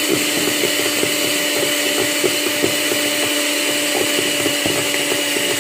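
Electric hand mixer running at a steady hum, its twin wire beaters whipping cream that is beginning to stiffen and set.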